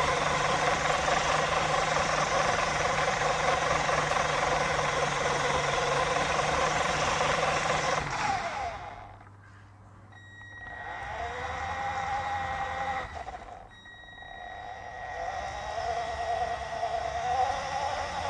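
Radio-controlled toy car's electric motor and gears running fast, then dying away about eight seconds in. After a short lull the motor runs again more slowly, with a wavering whine and a thin steady high tone, briefly dropping out once more.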